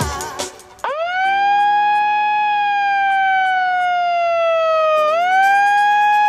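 Handheld megaphone's siren wailing: a tone that sweeps up sharply about a second in, slowly sinks, then sweeps up again about five seconds in and holds.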